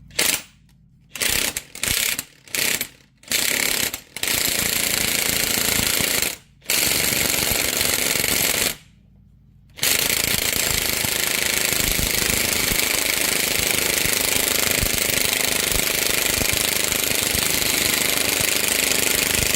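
Impact wrench hammering as it drives the screw of a U-joint press, pushing a universal joint cup through the axle yoke. It runs in about seven short bursts of a second or two, pauses briefly, then runs without a break for about ten seconds.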